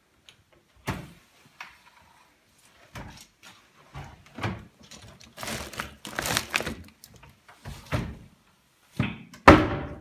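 Full paper vacuum cleaner bag rustling and crinkling as it is handled and pushed into a bin, with scattered knocks. A single loud thud comes near the end.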